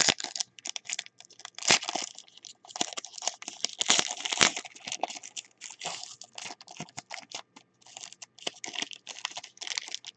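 Foil wrapper of a 2014 Hot Rookies football card pack being torn open and crinkled by hand: an irregular run of crackling crinkles.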